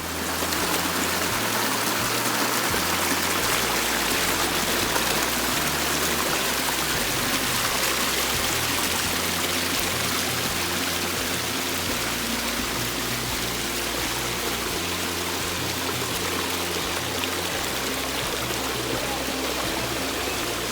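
Water of a forest waterfall pouring and splashing, a steady rushing hiss, with background music's low notes underneath.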